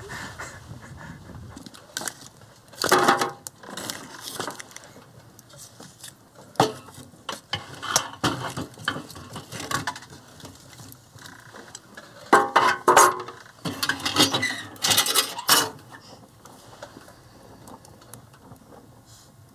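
A metal poker clanking and scraping against a metal wood stove and its door as the fire is stoked, in irregular clusters of clatter with pauses between.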